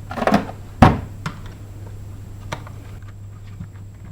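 Handling noise from a Silverline belt sander having its belt taken off: a short scuff, then one sharp knock about a second in and a few light clicks, over a low steady hum.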